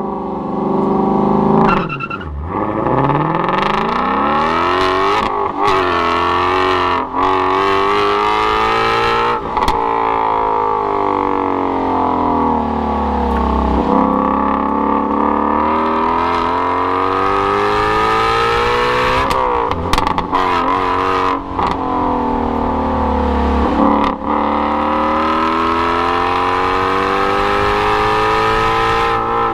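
2016 Shelby GT350's 5.2-litre flat-plane-crank Voodoo V8 driven hard on track, its pitch climbing in long pulls up toward high revs and then falling away again, several times. Sharp drops and jumps in pitch from gear changes interrupt it.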